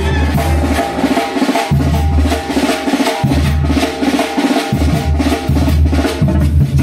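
Brass band playing, with snare and bass drum driving a steady beat over a low bass line.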